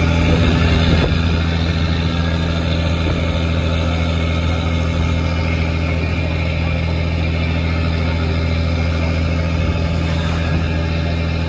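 Fishing trawler's diesel engine running steadily, a constant low drone with a noisy layer over it.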